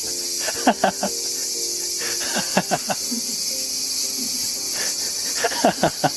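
Cicadas buzzing in a loud, steady chorus, with clusters of short squeaks falling in pitch scattered over it.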